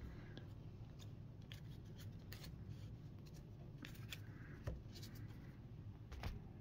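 Faint handling of baseball trading cards: scattered soft clicks and a few brief sliding rustles as cards are picked up and set down on a table, over a low steady hum.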